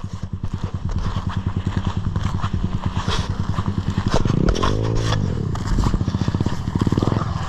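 2020 SSR 189 dirt bike's single-cylinder engine idling with a rapid, even putter. It is revved up once briefly about halfway through and drops back to idle, with a few clicks and knocks.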